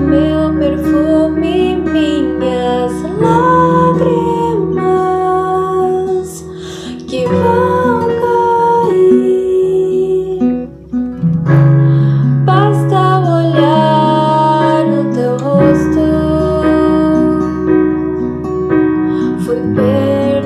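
Worship song with a melody that bends and glides like a singing voice, over guitar and keyboard accompaniment.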